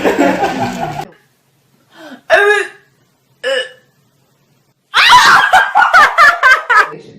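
A person laughing in quick repeated bursts, starting about five seconds in, after two short, separate cries.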